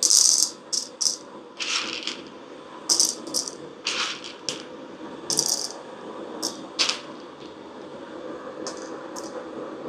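Roasted coffee beans clattering in short, irregular bursts as they are poured and topped up into a container on a scale to weigh out 10 grams.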